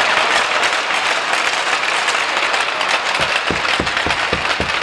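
Arena crowd applauding steadily. A run of about six low knocks comes near the end.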